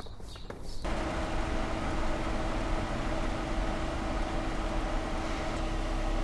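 Car driving on a road: steady road and engine noise with a deep rumble and a constant hum, starting abruptly about a second in.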